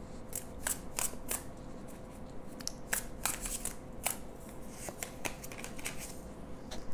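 Tarot cards being handled and shuffled: an irregular scatter of short, sharp papery snaps and clicks as the deck is worked, with a card drawn from it near the end. A faint steady hum sits underneath.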